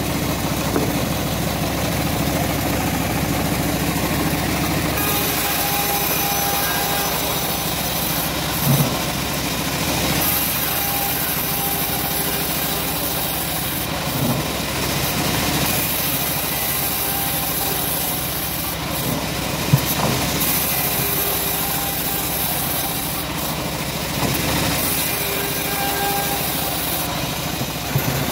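Home-built band sawmill running steadily, its engine going and the band blade ripping teak, with the cutting hiss growing stronger about five seconds in. A few short knocks as the timber is handled.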